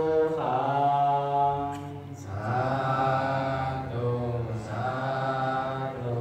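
A Buddhist monk chanting into a microphone: one male voice in long, held, melodic tones, in three phrases with short pauses for breath.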